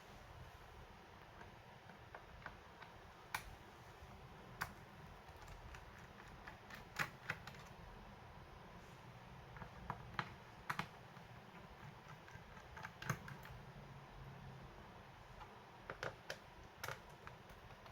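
Faint, irregular small clicks and taps, about a dozen spread unevenly, from hands and a small tool working on a laptop's plastic case and parts.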